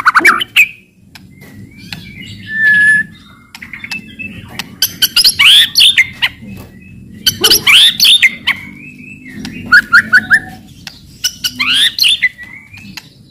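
White-rumped shama (murai batu) singing loudly, mixing many sharp clicking 'cetrekan' notes with downward-sweeping whistles and a quick trill of about five notes near the end.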